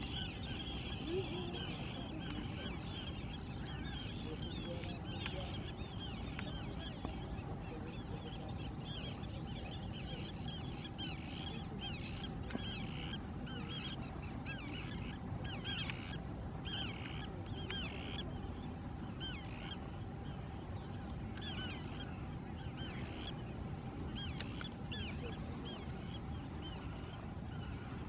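A dense chorus of many birds calling, with short, high, rapidly repeated calls overlapping throughout. Beneath it are a steady low rumble and a faint steady hum.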